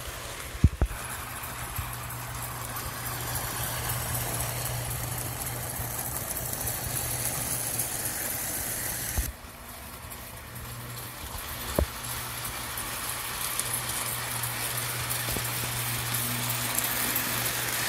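Lionel O-gauge model train, a New York Central Flyer 4-4-2 steam-type locomotive with freight cars, running on its track: a steady motor hum under the rattle of wheels on the rails, growing louder as the train nears. The sound drops suddenly about nine seconds in and builds again, with a couple of sharp clicks along the way.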